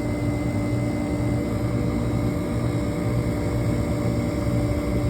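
Steady machinery hum with a constant low drone and a few held tones, unchanging throughout.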